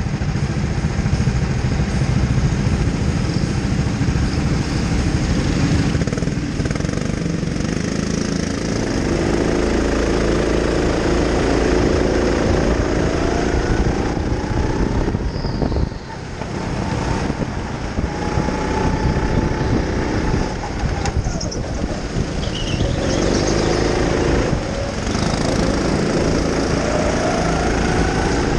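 Go-kart motor running hard through laps of an indoor track, its pitch rising and falling as the kart speeds up and slows for the corners, over a constant low rumble and rattle of the kart. The level dips briefly about halfway through.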